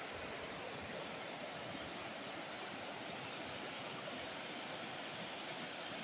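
Fast-flowing river rushing steadily over the shallows, a constant hiss of churning water.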